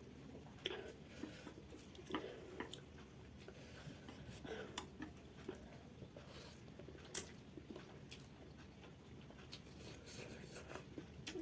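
A person chewing instant noodles close to the microphone: soft wet mouth sounds and scattered small clicks, with one sharper click about seven seconds in.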